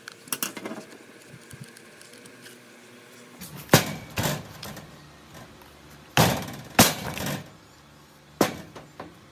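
A few light clicks, then five sharp knocks with a short ring as a power tool's metal motor housing is banged down on a workbench to shake the field-coil stator loose.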